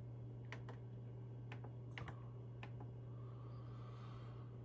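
Scattered clicks from a computer keyboard and mouse, about seven in the first three seconds, over a steady low hum.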